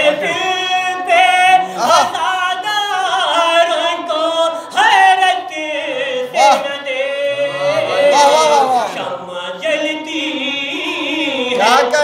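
A man singing a devotional Urdu poem in a melodic, chant-like style into a microphone, amplified through a loudspeaker in a hall, with long held, wavering notes.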